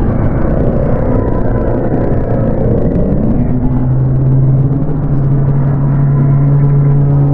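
Dark ambient horror drone: a dense low rumble layered with sustained tones. About two to three seconds in, one tone slides upward, and from about four seconds in a deep, steady drone comes to the fore.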